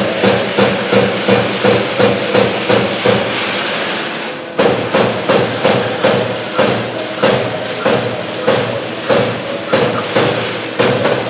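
CNC punch press punching sheet metal, its sharp strokes coming about three a second over a steady machine hum. The strokes stop for about a second and a half around three seconds in, with a hiss, then resume at the same pace.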